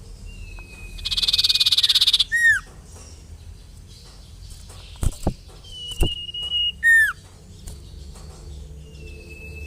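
Sirtu songbird calls: drawn-out level whistles, a rapid buzzy trill about a second in, and short sharp down-slurred notes, repeated a few times.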